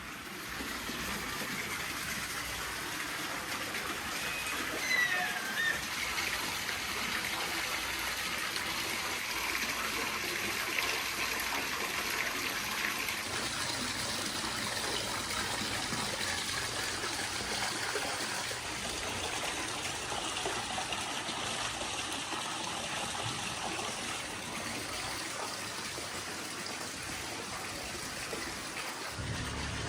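Steady rush of running water, like a trickling tap or stream. About five seconds in there is a brief high squeak that falls in pitch.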